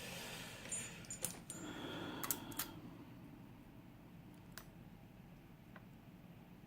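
A lock being taken apart by hand: a cluster of small metallic clicks and light scraping, with a couple of brief high metal rings, in the first three seconds, then only a few single clicks. These are the sounds of the core being worked out of the lock with a follower.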